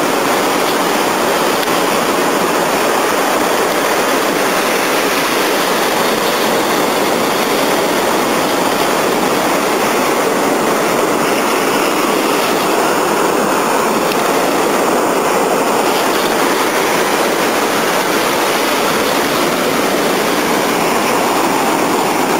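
Steady rushing of sea surf breaking on a rocky shore.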